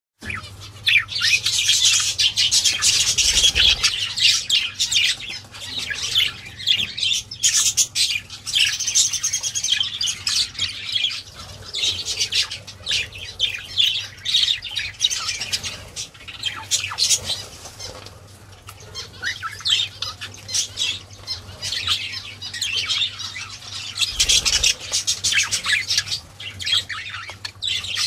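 Budgerigars chattering and warbling in fast, scratchy runs of chirps, easing off for a while midway.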